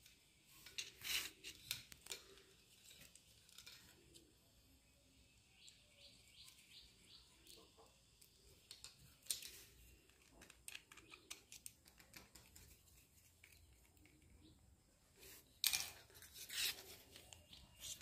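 Faint, scattered clicks and scrapes of a small screwdriver and plastic parts as a bayonet lamp holder's terminal screws are worked and wires are fitted into it. Small clusters of louder clicks about a second in, around nine seconds, and around sixteen seconds.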